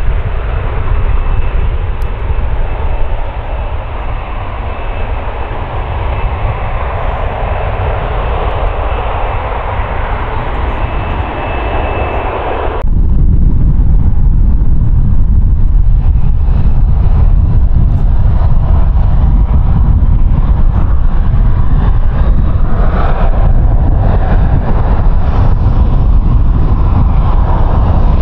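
Boeing 787 Dreamliner's jet engines on takeoff thrust: a steady broad roar with a thin high fan whine. About 13 seconds in it cuts abruptly to a louder, deeper jet rumble from another airliner, a Boeing 737.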